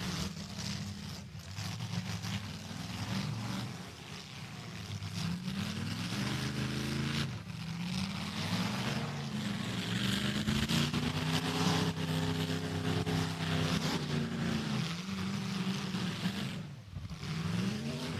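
Demolition derby car engines revving up and easing off several times, held at high revs for a few seconds in the middle.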